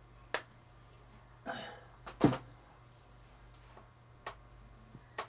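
Steady electrical hum with a few sharp clicks scattered through it, a short rustle about one and a half seconds in, and a brief loud sharp noise just after two seconds.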